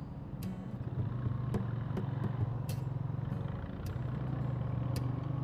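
Motorcycle single-cylinder engine running while riding, a steady low drone that eases off briefly a couple of times. Several sharp clicks sound over it.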